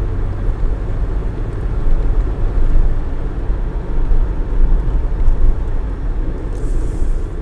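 Steady low road and engine rumble of a car driving at speed, heard from inside the cabin.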